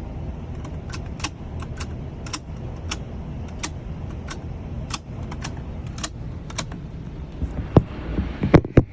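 A long series of sharp metallic clicks, one or two a second at an uneven pace: cartridges being pressed one by one into a handgun magazine. A few louder, heavier knocks come near the end.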